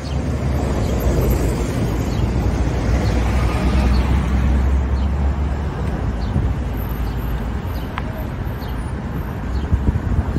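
City street traffic: cars driving past in a steady wash of noise, with a deep low rumble that eases about halfway through. A single sharp click sounds near the end.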